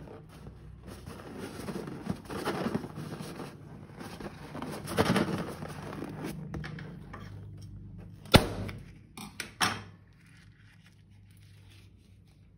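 Hands working slime and its plastic containers: rustling and scraping, with a sharp click about two-thirds of the way through followed by a couple of lighter taps.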